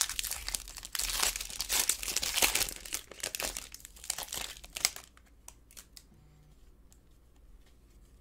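Foil wrapper of a Prizm basketball hobby pack crinkling and tearing as it is ripped open and peeled off the cards, for about five seconds; after that only a few faint clicks of the card stack being handled.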